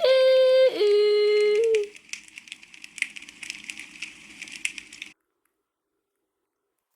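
A loud two-note electronic tone, a higher note for under a second dropping to a lower one held for about a second, over crackling static. The static cuts off suddenly about five seconds in.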